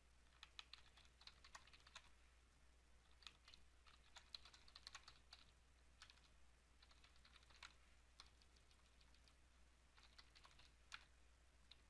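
Computer keyboard typing, faint, in several short bursts of keystrokes with pauses between.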